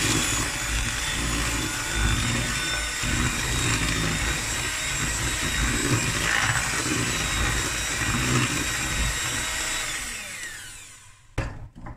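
Electric hand mixer running at a steady speed, its beaters working through thick cake batter in a plastic bowl. Near the end the motor whine falls in pitch and stops.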